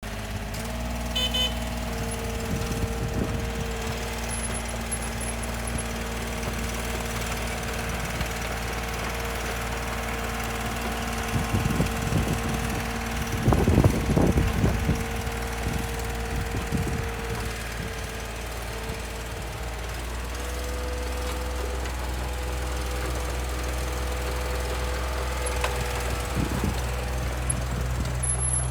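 Komatsu PC15-3 mini excavator's diesel engine running steadily, with bursts of clattering as it digs, the loudest about 14 seconds in. The engine note shifts slightly about 20 seconds in.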